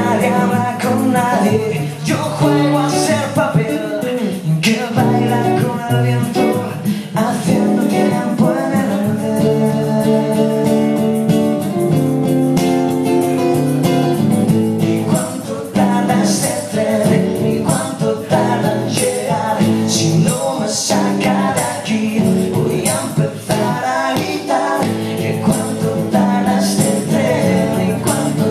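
Live acoustic song: a strummed steel-string acoustic guitar accompanying two male voices singing into microphones, with sharper rhythmic strokes coming in about halfway through.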